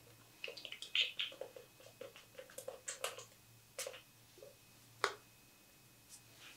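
Small clicks and light handling noises from a body mist bottle, with a few short hisses, most of them in the first three seconds and a couple of sharper clicks later.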